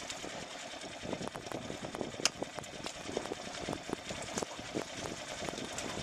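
Fishing reel being wound in on a bent rod: a steady mechanical whirr with many small, irregular clicks.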